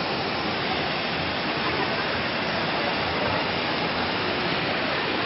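Fountain jets falling back and splashing into a pool: a steady, even rush of water.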